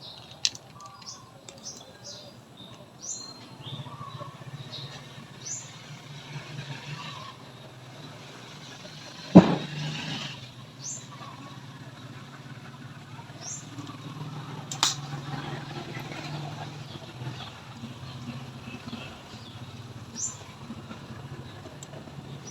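Outdoor ambience: scattered short high bird chirps over a low steady hum like distant traffic or an engine, with a loud sharp knock about nine seconds in and a smaller one around fifteen seconds.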